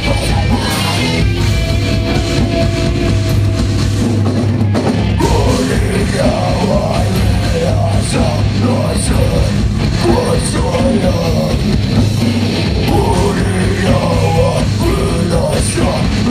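Metalcore band playing live: distorted electric guitars, bass and drum kit.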